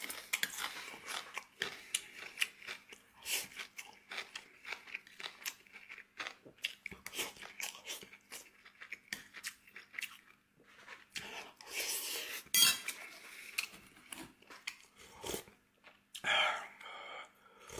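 A person chewing and crunching food close to the microphone, with many short, sharp clicks and crackles. There are two longer, louder noisy sounds, one about two-thirds of the way in and one near the end.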